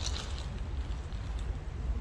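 Steady low outdoor rumble in a pause between a songbird's calls, with the tail of a chirp right at the start.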